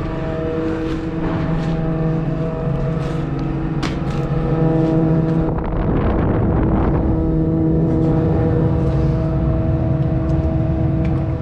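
High-pressure drain-jetting pump running steadily with a constant droning hum while the jetting hose is pulled back out of the pipe. There are a few sharp knocks in the first few seconds, and a rush of noise about six seconds in.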